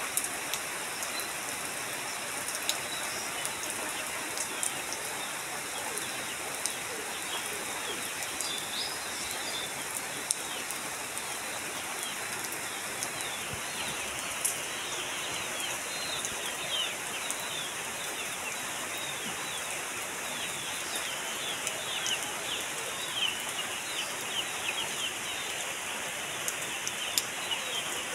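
Steady rain falling on corrugated tin roofs and a waterlogged yard, with scattered drops ticking. Partway in, birds start chirping in quick, short falling notes, growing busier toward the end.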